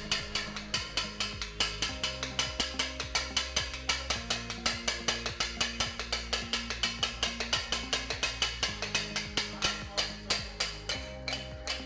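Two steel kothu blades chopping and mixing beef kothu parotta on a flat griddle. The metal clangs against the metal at an even pace of about five strikes a second.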